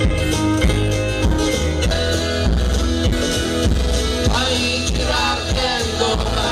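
Live band playing a country-style arrangement: strummed acoustic guitars over bass and a steady beat, with a tambourine.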